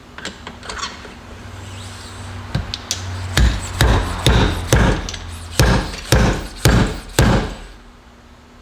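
A 41 mm fork seal driver knocking a new oil seal down into a motorcycle fork tube: a few light taps, then eight or nine sharp metal blows about two a second, driving the seal home until it bottoms out.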